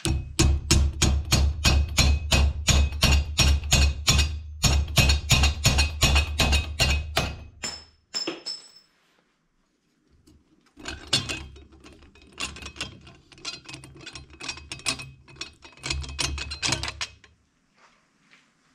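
Rapid hammer blows on the steel pedal cluster, about four ringing metal strikes a second, in two long runs with a short pause between. The blows are meant to free a clutch pedal seized on its shaft.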